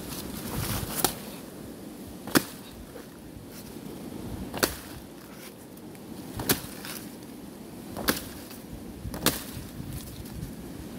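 Six chopping strokes of a blade into the trunk of a banana plant, sharp cracks spaced one to two seconds apart.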